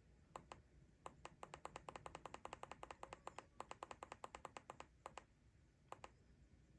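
Faint, light clicks: a couple of single clicks, then a quick even run of about seven a second lasting around four seconds, and two more near the end.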